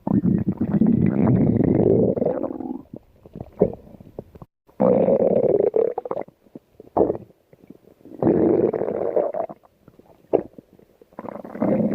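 A stomach growling: four long, gurgling rumbles, each a second or two, with short gurgles and clicks in the pauses between them.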